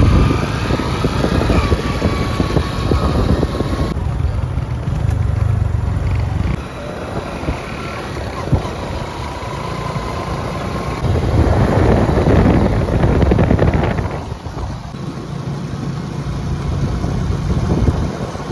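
Hero Honda CD100's 97 cc four-stroke single-cylinder engine running as the motorcycle is ridden along the road, rising and falling in loudness, with the loudest stretch about twelve seconds in.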